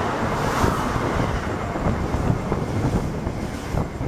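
Amtrak passenger train's stainless-steel cars passing close along the platform at speed: a steady rumble and rush of wheels and air, mixed with wind buffeting the microphone, with a few sharp clacks near the end.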